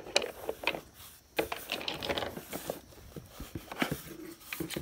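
Hands rummaging among plastic-bagged parts in a cardboard box: plastic bags rustling and hard black plastic clamp pieces clicking against each other, irregular and starting after a short lull about a second in.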